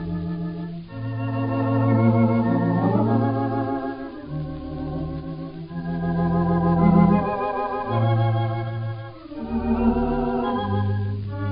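Theatre pipe organ playing a slow melody in held chords with a wavering tremulant vibrato. The sound is thin and narrow-band, as on an old 1920s record.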